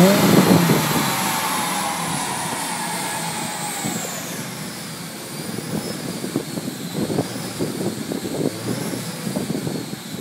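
Aston Martin DB7 GT's V12 and the chassis dyno's rollers winding down after a run: a high whine falls steadily in pitch and fades over the first few seconds. After that a fainter whine wavers up and down over the lower running of the engine.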